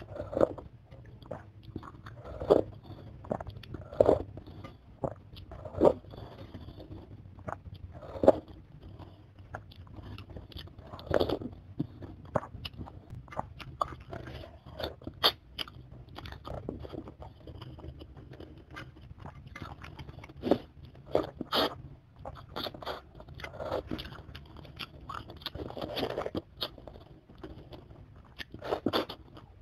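Close-miked eating of chicken feet: biting and chewing, with irregular sharp mouth clicks and smacks.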